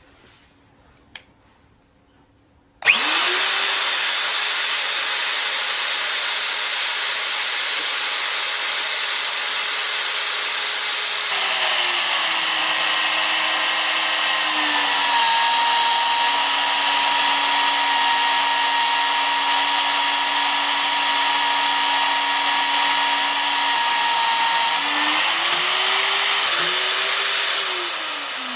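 Nitto Kohki ATRA ACE auto magnetic drill starting up about three seconds in and running free. About eleven seconds in its motor note drops and turns harsher as the JETBROACH annular cutter bores into steel, and it holds that loaded pitch until, a few seconds before the end, the pitch rises again as the load comes off.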